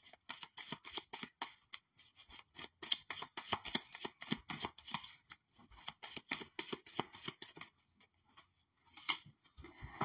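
A deck of oracle cards being shuffled by hand: a rapid run of soft card slaps and flicks for about seven seconds that stops, then a couple of single taps near the end.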